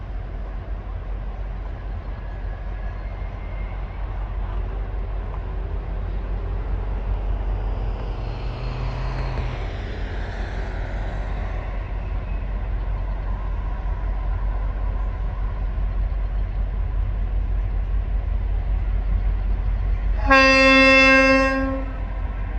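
TasRail diesel locomotive TR03 approaching with a steady low rumble, then sounding one long horn blast of about a second and a half, near the end.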